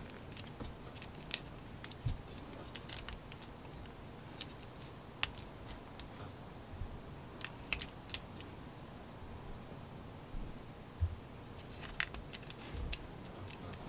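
Faint, irregular clicks and ticks of a plastic S.H.Figuarts action figure's joints being flexed and posed in the hands, with light handling of the figure.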